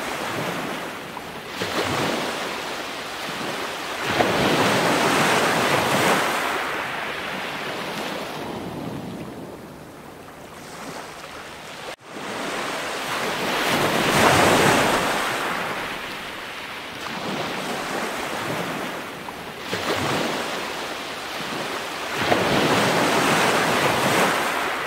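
Surf washing in and out, a rushing noise that swells and fades every few seconds, with a brief sharp break about halfway through.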